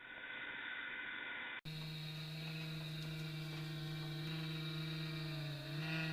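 Humidifier running with a steady electric hum of many overtones, its pitch wavering slightly near the end. A hard cut about one and a half seconds in separates it from a shorter, duller stretch of steady machine noise.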